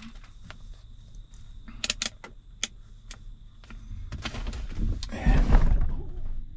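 Handling noise inside a combine cab: a few sharp plastic clicks from the multimeter and test leads about two seconds in. Then a louder rustle of clothing with a low thump around five seconds in, as the person moves across the cab right against the camera.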